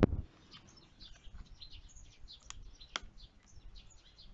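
Faint bird chirps repeating in the background. A sharp knock comes right at the start and two crisp clicks come about two and a half and three seconds in as the plastic head of a glass spray bottle is twisted.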